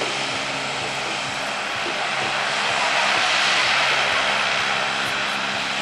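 Lockheed C-130 Hercules's four turboprop engines running with a steady propeller hum as the aircraft rolls slowly along the runway, swelling about halfway through and then easing off a little.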